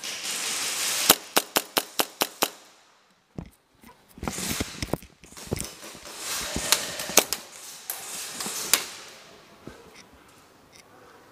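Airsoft pistol firing indoors: a fast string of about seven sharp shots, roughly five a second, then scattered single shots and knocks mixed with rustling.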